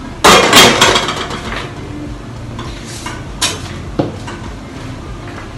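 Hot oil in a stainless steel frying pan bursting into a loud sizzle and crackle as food is dropped in for the tempering, dying away over about a second and a half. A couple of sharp knocks follow a few seconds later.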